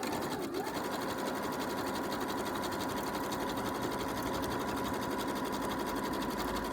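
Electric sewing machine running steadily at speed, stitching a decorative stitch along a line of fabric: a rapid, even patter of needle strokes over a steady motor hum.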